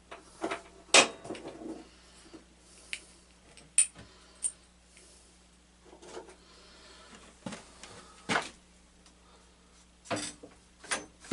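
Metal tractor parts and hand tools being handled during disassembly: scattered clinks and knocks, the sharpest about a second in and again near the middle and about two thirds through.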